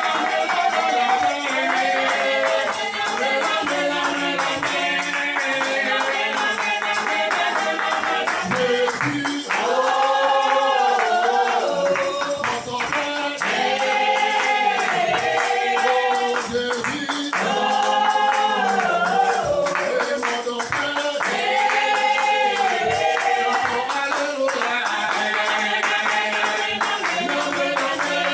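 Music with singing: sung phrases with long held notes over a busy, steady percussion beat.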